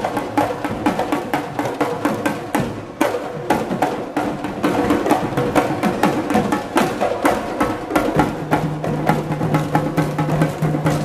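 Live Assamese Bihu folk music: a dhol barrel drum and a large frame drum beating a fast, dense rhythm with sharp wooden-sounding strokes. A steady held tone joins the drumming about eight seconds in.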